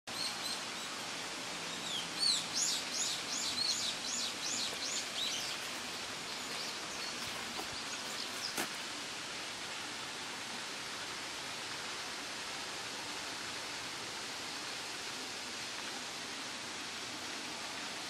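A small songbird sings a quick run of about ten repeated high sweeping notes, about three a second, from about two seconds in until about five seconds in, over a steady outdoor hiss. A single sharp click comes near the middle.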